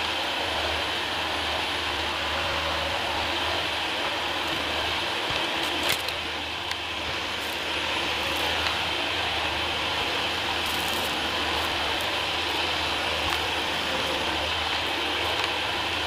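Dyson DC40 ball upright vacuum cleaner running steadily as it is pushed over a wooden floor, with a few sharp clicks of debris being sucked up.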